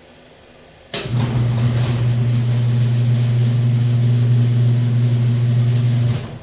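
A machine switched on about a second in: a steady, loud low hum over a hiss, running for about five seconds and then cut off abruptly.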